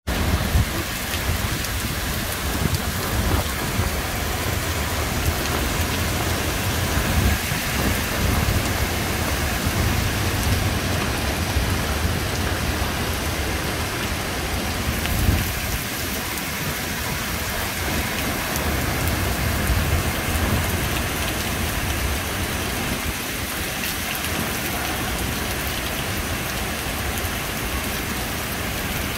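Heavy rain pouring down onto open lake water: a steady, dense hiss with a low rumble underneath.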